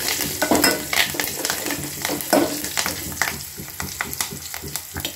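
Hot oil sizzling and crackling in a small metal pan as a tempering of mustard and cumin seeds, crushed garlic and freshly added curry leaves fries, with a spoon stirring it at first. The crackle thins out toward the end.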